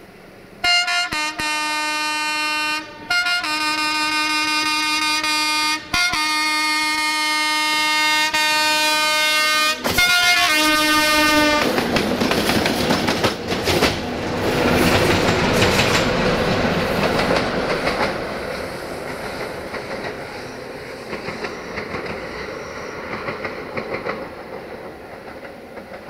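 Electroputere 060-DA (ST43) diesel-electric locomotive sounding its horn in a series of long blasts with short breaks for about the first eleven seconds. It then passes close by, its diesel engine running and wheels clacking over the rail joints, and fades as it goes away.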